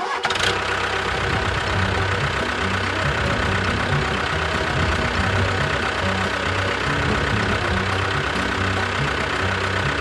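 Tractor engine running steadily, cutting in suddenly and holding an even level throughout, with background music playing underneath.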